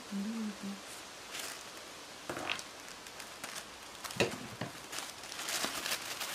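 Thin tissue paper rustling and crinkling in irregular bursts as a folded sheet is handled and unfolded. A brief low hummed tone near the start.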